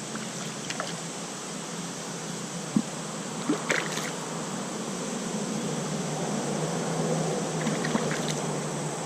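Stream water running steadily, with a few brief sharp clicks between about three and four seconds in.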